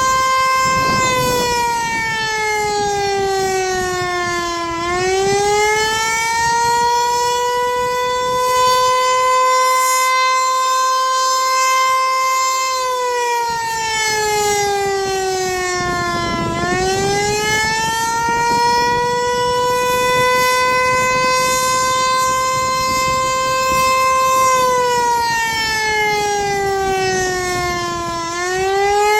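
Federal Signal Eclipse 8 electronic outdoor warning siren sounding its Attack signal, a wail. The tone holds high, slides down and climbs back up, three times about twelve seconds apart.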